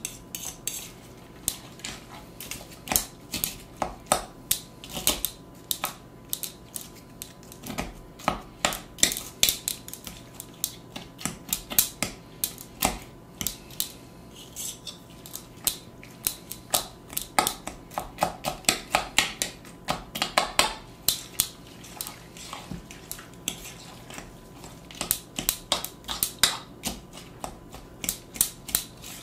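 Metal fork clinking and scraping against a ceramic mixing bowl in quick, irregular strokes, crushing saltine crackers into a wet salmon mixture.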